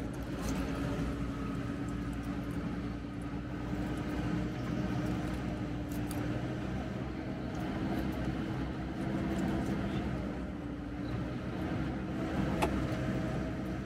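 A vehicle engine running steadily, a low rumble with a constant hum, with a couple of sharp clicks, one about six seconds in and a louder one near the end.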